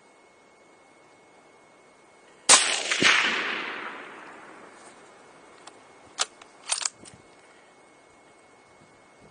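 A single .308 Winchester rifle shot: one sharp, loud report, a second crack about half a second later and an echo fading over about two seconds. A few seconds later come several short, sharp clicks, the rifle being worked for a follow-up shot.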